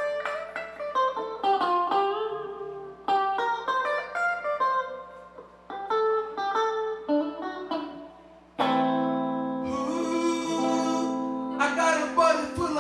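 Guitar played during a sound check: picked single notes that ring and fade, then about two-thirds through a louder, sustained passage.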